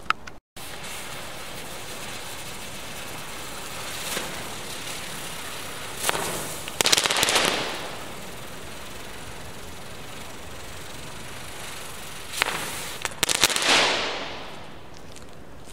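Kometa 'UFO' firework going off and bursting into crackling stars. There is a small pop around 4 s in, a burst of dense crackling around 6–8 s, and a second crackling burst around 12–14 s that fades away.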